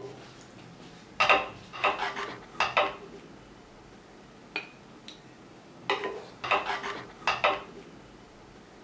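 A wooden spatula scraping and knocking against an enamelled pot as curry is served into a ceramic bowl: two runs of clatters, about a second in and again past the middle, with a couple of single taps between.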